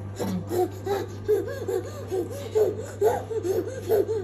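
A young child laughing: a quick run of short, high laughs, about four a second, that starts just after the beginning and keeps going, over a steady low hum.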